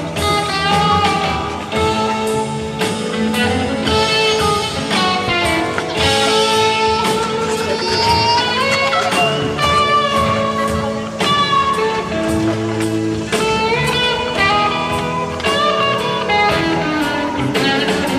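Instrumental background music: a blues guitar piece with bent, sliding notes.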